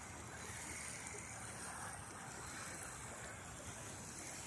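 Small waves lapping on a sandy shore, a faint, steady wash of water.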